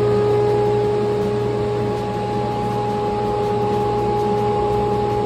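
Steady motor hum with a constant whine over it, unchanging throughout.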